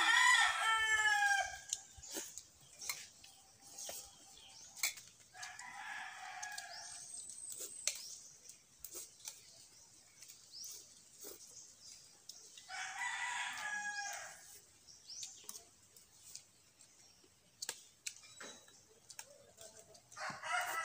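A rooster crowing four times, each crow about a second and a half to two seconds long and several seconds apart, with light clicks of spoons on metal plates in between.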